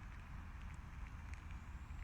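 Wind buffeting the microphone in a steady low rumble, with a faint thin high tone throughout.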